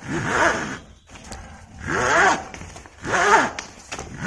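Polyester webbing strap being pulled through a ratchet tie-down buckle by hand to take up the slack: repeated pulls about a second apart, each a zipping squeak that rises and falls in pitch. There are three full pulls, with a fourth starting at the end.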